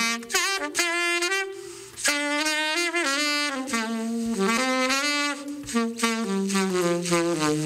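Saxophone playing a solo melody: a run of short notes with a scoop down and back up in pitch near the start, then longer held notes.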